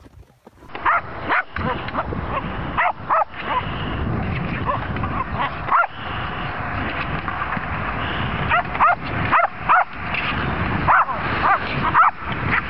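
Westie puppies yipping and barking in play: many short, high barks in quick runs, starting about a second in and coming thickest in the second half, over a steady background hiss.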